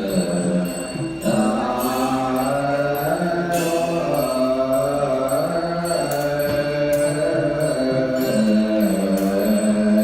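Background music of low voices chanting in long, held notes that change pitch every few seconds.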